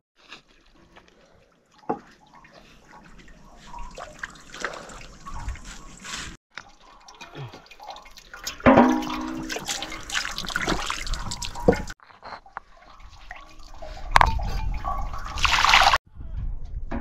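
Water splashing, pouring and dripping, with scattered knocks and clatter of handling; the sound breaks off and changes a few times.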